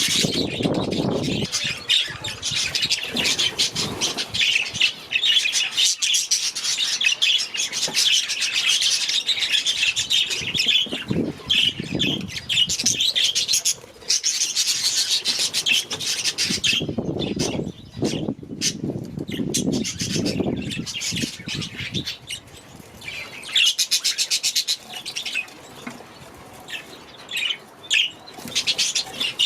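A flock of budgerigars chattering and chirping continuously in an aviary, with several louder low bursts of noise mixed in, the longest about two thirds of the way through.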